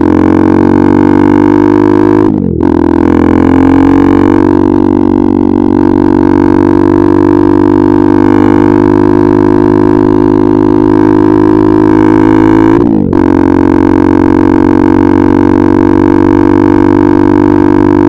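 KTM RC 390's single-cylinder engine through an Akrapovic exhaust, running loud and steady at cruising revs. Twice, about two and a half seconds in and again near thirteen seconds, the note briefly dips and picks up again.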